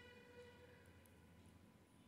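Near silence, with the faint tail of background music dying away.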